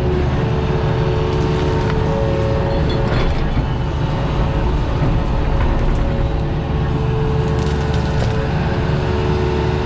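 Compact diesel machine running steadily under load, with a constant hydraulic whine, while tree roots and wood crack and splinter, in two clusters of snaps.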